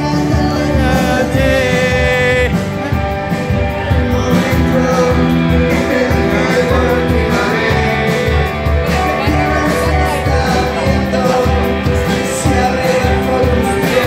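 Live rock band playing amplified: a man singing over electric guitars and drums with a steady beat.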